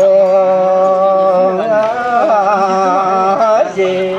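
A single voice singing Ache Lhamo-style chant: one long held note, then a wavering, ornamented run, with a brief break before a new note near the end.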